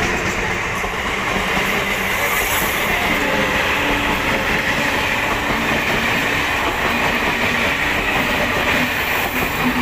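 ICF-built electric multiple unit (EMU) local train running close by along the platform. Its wheels make a steady, loud rumble on the rails.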